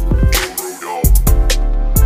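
Background music with a heavy bass line and a drum beat.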